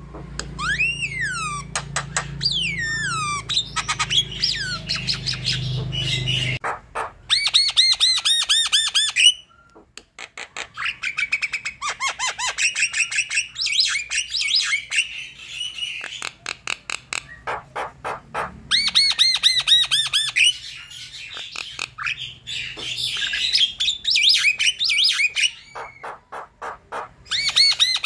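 Javan myna (jalak kebo) in full song: a fast, varied stream of harsh squawks, chirps and rapidly repeated notes, with sliding whistles near the start and a brief pause about ten seconds in.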